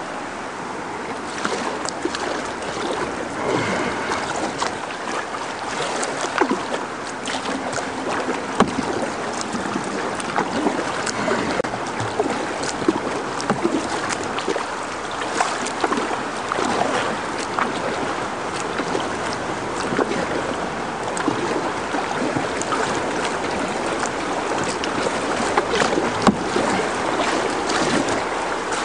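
Fast river water rushing and splashing close around a kayak as it runs a small dam waterfall and the rapids below it, with frequent short splashes and knocks against the hull.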